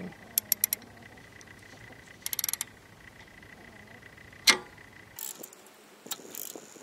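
Ratchet wrench with a 17 mm socket clicking in short quick runs while it turns the camshaft sprocket bolt by hand, with one sharp metallic clack about four and a half seconds in, the loudest sound, then light scattered ticks. The cams are being turned to check for valves striking the pistons, and no interference is felt.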